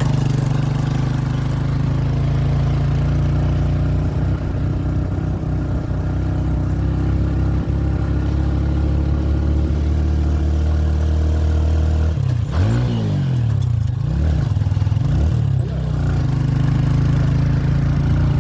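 A vehicle engine running steadily on the move. Partway through, its pitch swoops up and down several times as it revs and eases off, then it settles back to a steady note.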